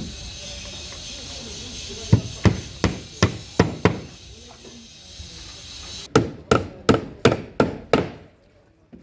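Hammer blows on wood in two runs, about six strikes and then seven, roughly three a second: carpentry hammering, such as nails being driven.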